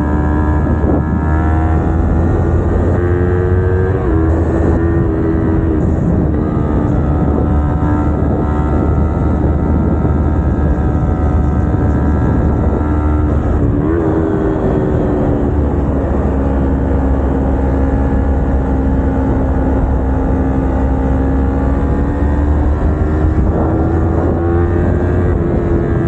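Kawasaki Ninja 250R's parallel-twin engine running while the bike is ridden, heard onboard. Its pitch dips sharply about four and fourteen seconds in, then sags slowly and climbs again near the end, over a steady low wind rumble.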